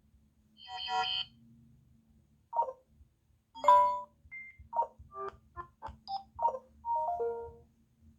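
Samsung Galaxy A40 playing one of its built-in ringtones: a run of short electronic chime notes with uneven gaps, a quick cluster of blips in the middle and a longer two-note figure near the end.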